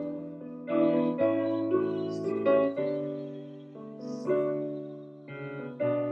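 Piano-style keyboard playing slow instrumental music: chords struck and left to fade, changing roughly once a second.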